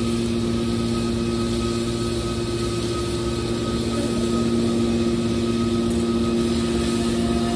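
Hydraulic scrap metal baler running: its power unit gives a constant machine hum with a steady pitched whine.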